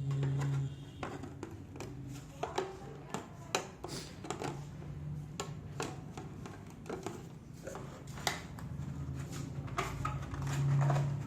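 Scattered light clicks and taps of hand work on parts, over a low hum that swells near the start and again near the end.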